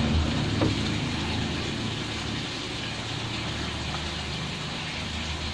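Water splashing and bubbling in a fiberglass tank as spawning mats tied to a PVC pipe are lowered into it, with a steady low hum underneath.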